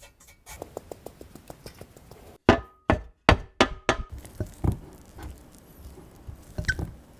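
A run of sharp knocks and taps on hard kitchen objects. Light, quick clicks come first, then a cluster of about six loud knocks between two and a half and five seconds in, and a few more knocks near the end.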